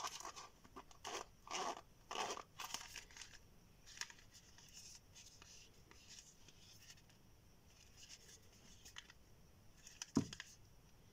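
Hands handling a faux-leather (vinyl rexine) bifold wallet: a few short rustling, scraping strokes in the first three seconds as it is opened and flexed, then faint rubbing and ticks as it is closed and turned over. A single sharp knock about ten seconds in is the loudest sound.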